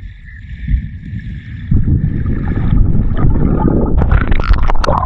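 Low rumbling water and wind noise buffeting the microphone, growing louder about two seconds in, with a few sharp knocks or splashes near the end.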